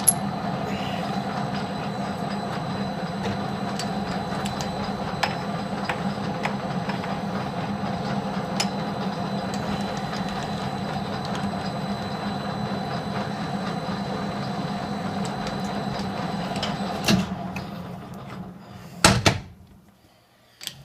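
Metal lathe running steadily, its chuck spinning a small steel spacer, with a steady hum and a thin high whine. About 17 seconds in there is a clunk and the spindle winds down, with another knock about two seconds later.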